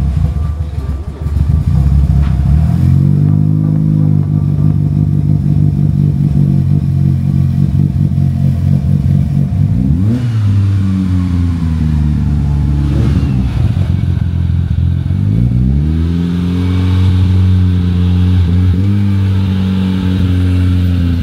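Mitsubishi Lancer Evolution's turbocharged 2.0-litre four-cylinder running through a new 3-inch cat-back exhaust. It idles, is revved up about three seconds in and settles, gets short blips of the throttle twice in the middle, then climbs about sixteen seconds in to a higher held engine speed until the end.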